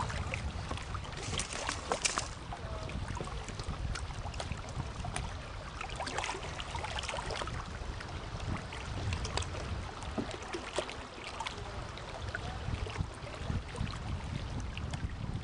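Kayak paddles dipping and splashing in lake water in irregular strokes, heavier about two seconds and six seconds in, over wind rumbling on the microphone.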